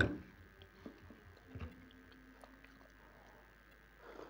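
A sharp crunching bite into a chunk of dried grey clay close to the microphone, followed by faint chewing crunches and small clicks. A soft rustle comes in near the end.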